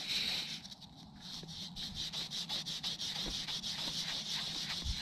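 Fingers rubbing soil off a freshly dug silver coin close to the microphone: a scratchy rubbing with a fast run of small clicks.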